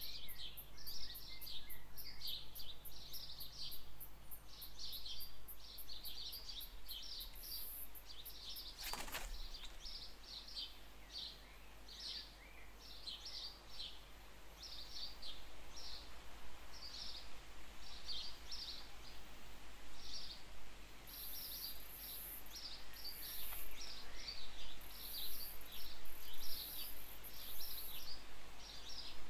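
Small birds chirping in short high phrases, one every second or so, with a high, fast ticking and buzzing above them and a single brief swish about nine seconds in.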